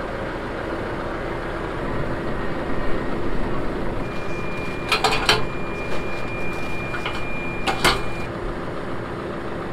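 Tractor engine idling steadily, with a few sharp metal clanks about halfway through and again near the end as the rear three-point hitch is handled. A steady high tone sounds for about four seconds in the middle.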